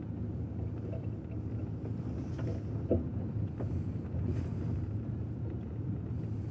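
Car driving slowly on a muddy, stony dirt track: a steady low engine and tyre rumble, with a few faint knocks a little after two seconds in.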